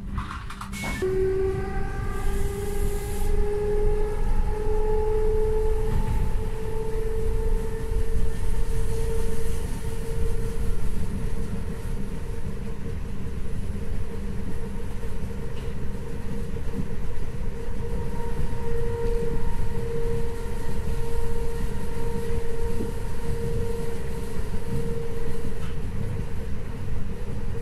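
ÖBB class 4020 electric multiple unit heard from inside the passenger car as it pulls away from a station: after a click about a second in, the traction drive's whine climbs in pitch over several seconds and then holds steady over the constant rumble of the wheels on the track.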